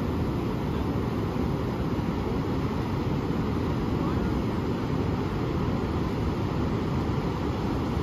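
Pacific Ocean surf breaking on a sandy beach: a steady, low wash of waves with no breaks or sudden sounds.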